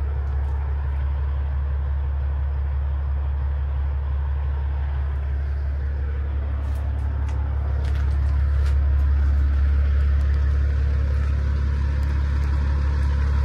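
Semi truck driving at highway speed: a steady, low engine and road drone that gets a little louder about eight seconds in.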